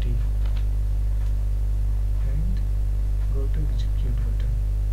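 Steady electrical mains hum, a low buzz with a ladder of overtones, with a faint voice and a few faint clicks over it.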